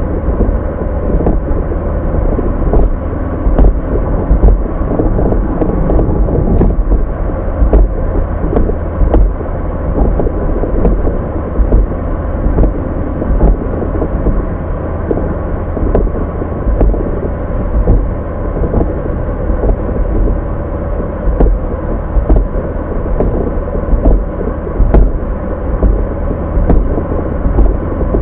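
Car engine running steadily, a deep rumble with a steady hum above it and a few faint clicks.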